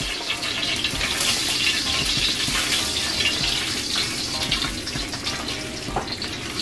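Chicken wings frying in a pan of hot oil: a steady sizzle with many small pops.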